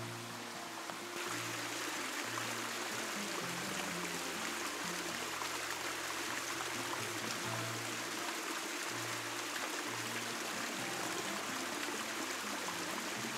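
Background music with a steady, stepping bass line over the rush of running water from a rainforest creek; the water grows louder about a second in.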